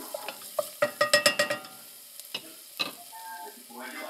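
Wooden spoon stirring and scraping diced onion, garlic and jalapeño sautéing in a stainless steel saucepan, over a light sizzle. About a second in, a quick cluster of sharper knocks sets the metal pan ringing.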